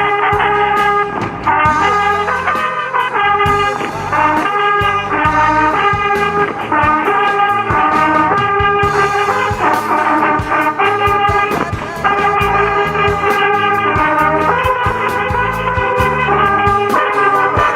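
Instrumental music between sung verses: a brass melody of held notes over a steady drum beat and bass.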